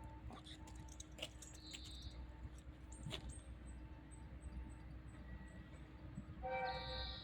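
Quiet station ambience with scattered faint clicks. Near the end, the limited express train's horn gives a short steady blast, sounded by the driver as a greeting.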